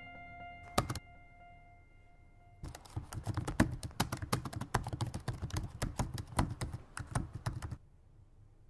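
Typing on a laptop keyboard: a single key click about a second in, then a fast run of key clicks lasting about five seconds that stops abruptly.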